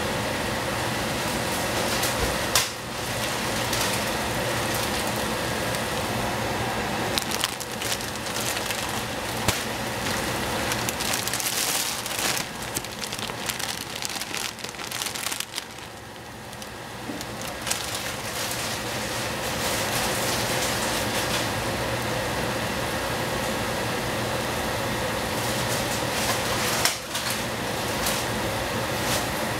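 Shiitake mushrooms and cabbage sizzling in a stainless saucepan over a steady hum, with a plastic bag of dried bean thread noodles crinkling in bursts as it is handled through the middle.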